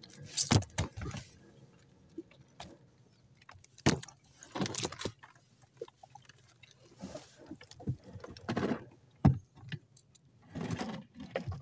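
Scattered knocks, clatters and rustles of fish and fishing gear being handled in a small wooden boat, with a sharp knock about nine seconds in.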